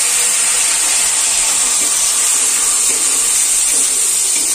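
Boneless chicken pieces sizzling steadily in a hot aluminium kadai as they fry with a little soy sauce, with a spatula stirring them near the end.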